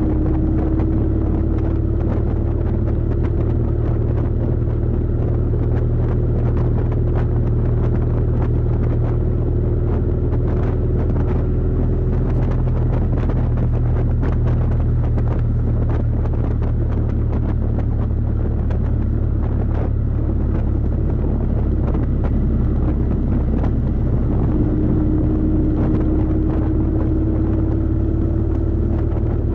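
Kawasaki VN750 Vulcan's V-twin engine running steadily while the bike climbs at cruising speed, a constant low drone. A fainter higher tone rises slowly in pitch, fades out about halfway through, and comes back near the end.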